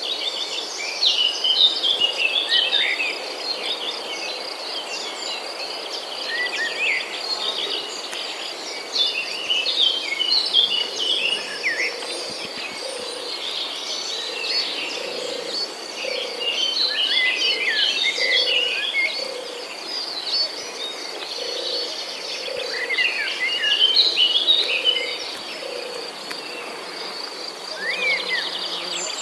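Tropical forest ambience: several birds calling in bouts of quick chirps and short whistles over a steady, high, pulsing insect trill. In the second half a low call repeats about once a second.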